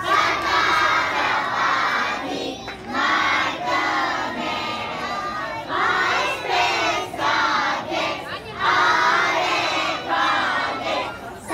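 A crowd of young children shouting together in unison, in short phrases with brief breaks between them.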